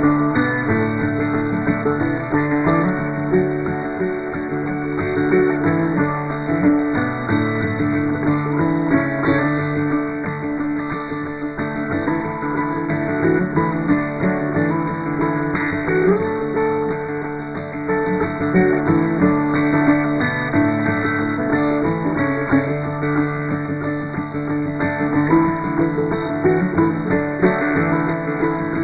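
Instrumental background music led by plucked acoustic guitar, with notes running continuously.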